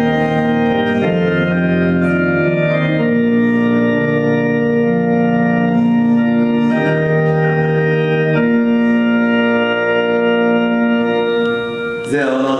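Organ playing slow, sustained chords that change every second or two, the music for a chapel wedding procession; it dies away near the end as a man's voice begins.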